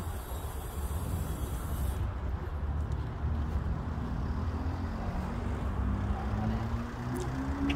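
Steady low outdoor rumble, with faint voices in the second half.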